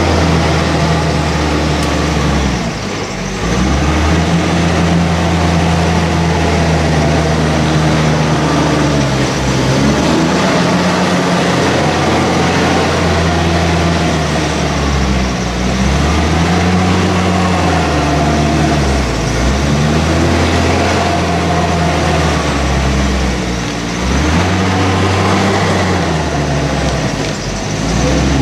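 JCB 414S wheeled loading shovel's diesel engine working as the machine drives back and forth over a silage clamp, rolling the grass to pack it down. The engine note rises and falls over and over, easing off briefly several times.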